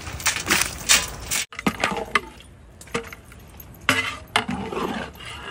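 Scattered metallic clinks and knocks of aluminium cookware: a large basin knocking against the rim of a big cooking pot as it is tipped out, with a metal ladle in the pot.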